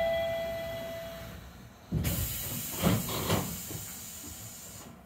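A chime tone fades out, then a burst of compressed-air hiss with two dull thuds about three seconds in as a Chiba Urban Monorail Type 0 train's doors close before departure; the hiss cuts off near the end.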